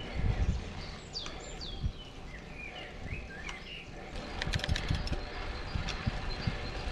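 Birds chirping, a handful of short rising and falling calls in the first half, over an uneven low rumble of wind buffeting the microphone. A few sharp ticks come a little past the middle.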